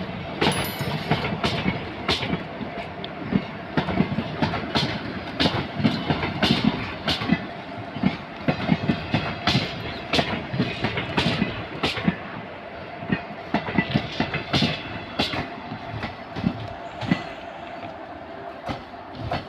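Passenger train running on the rails, its steel wheels clattering with many irregular sharp clicks over rail joints, over a steady hum.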